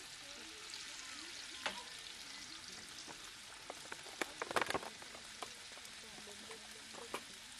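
Sausages sizzling in a ridged grill pan on a portable gas camp stove, a steady hiss. About four and a half seconds in, a brief cluster of clicks and clatter from handling tongs and a plastic punnet near the stove.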